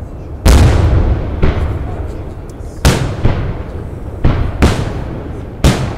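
Aerial firework shells bursting overhead: about seven sharp booms, some in quick pairs, each trailing off in a rolling echo, the loudest about half a second in.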